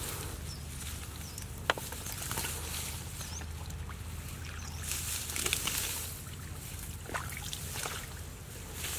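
Hands working in shallow muddy ditch water, with irregular sloshing and splashing and dry grass rustling, over a steady low hum. A single sharp click comes a couple of seconds in.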